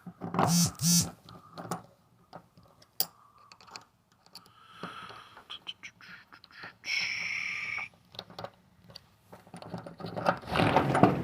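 Loose house hardware having its screws tightened: scattered clicks and taps of the tool and fittings, with a steady whir lasting about a second around seven seconds in.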